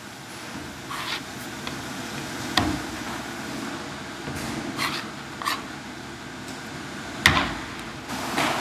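Knife scraping and smoothing fish paste while shaping a kamaboko on its wooden board, with short scrapes and a handful of sharp taps of the blade on the plastic cutting board, the sharpest about seven seconds in. A steady background hum runs underneath.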